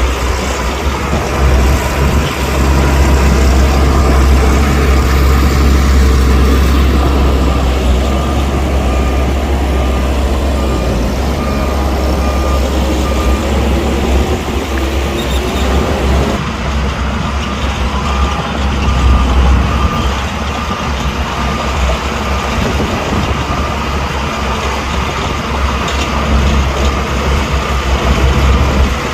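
Heavy diesel earthmoving machinery running under load, its engines rumbling low, with a reversing alarm beeping repeatedly. An engine revs up briefly about halfway through.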